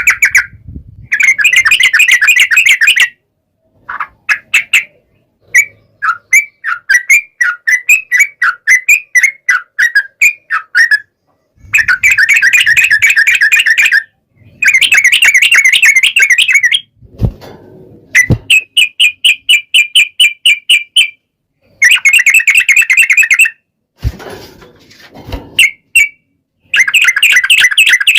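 Sooty-headed bulbul (trucukan) singing long, rapid rolling trills in bouts of two to three seconds with short pauses between. There are a few low knocks in the second half.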